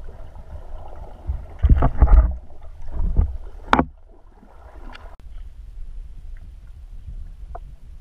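Muffled underwater noise heard through a camera in a waterproof housing: a steady low rumble, with a few heavy thumps and sloshes about two to three seconds in and a sharp knock near four seconds.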